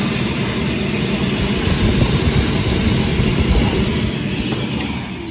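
Armor All AA255W 2-peak-HP wet/dry shop vacuum running loud while sucking up water. Near the end it is switched off and the motor winds down with a falling whine.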